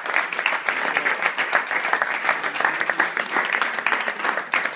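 A small group of people applauding, many hand claps running together steadily.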